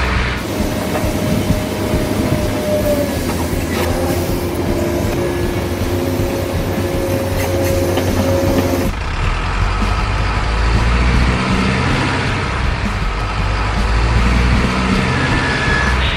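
Heavy truck engine sound running steadily, changing abruptly in character about nine seconds in.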